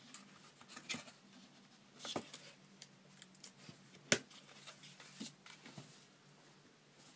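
Light handling of a knife and its leather sheath: scattered soft clicks and rubbing, with one sharp click about four seconds in.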